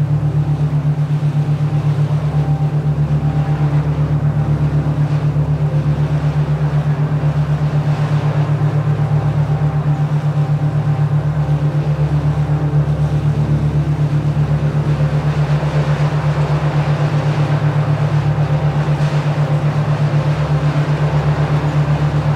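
Steady low synthesized drone tone pulsing evenly about four or five times a second, the kind used as a binaural-beat track, over a soft hiss of noise.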